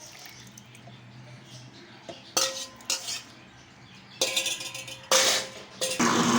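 Several ringing clinks and knocks of the blender jar and its lid as the cooked mango is put in and the jar is set up. About six seconds in, the blender motor starts and runs with a steady hum.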